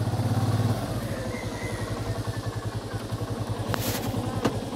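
Motorcycle engine idling with a steady, fast pulsing beat, a little louder for the first second. A brief rustle and a click near the end.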